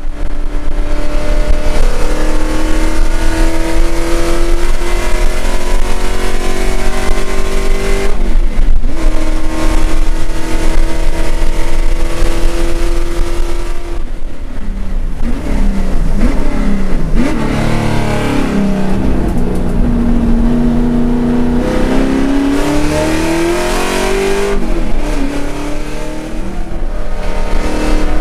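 Holden Commodore race car's V8 engine heard from inside the cabin, running hard under full throttle with the revs climbing. About halfway the revs fall away in steps for a corner, then build again.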